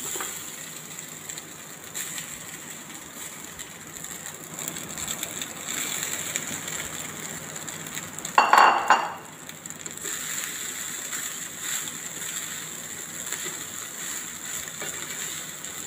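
Wooden spatula scraping and turning cooked rice in a frying pan, mixing it into fried onion masala, with light clicks and one short, louder clank about eight and a half seconds in.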